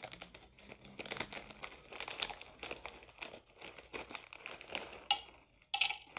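Plastic bag of dried garlic flakes crinkling as it is handled and opened, irregular crackles throughout with a couple of louder ones near the end.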